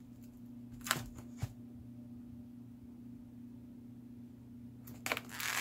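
Handling noises from plastic-wrapped food trays: two short clicks about a second in, then a longer crinkling rustle near the end, over a steady low hum.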